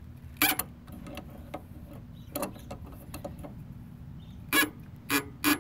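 Adjustable wrench knocking against the alternator pulley nut of a VW 1600 engine as it is fitted to turn the engine by hand: a sharp click about half a second in, a softer one midway, and three loud clicks close together near the end, over a low steady hum.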